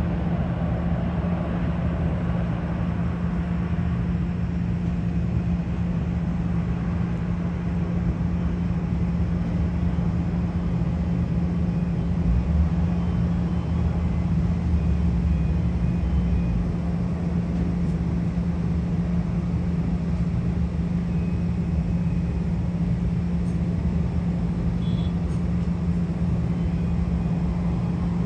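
Steady jet aircraft engine noise: a constant low hum under a broad rumble, which swells briefly about halfway through.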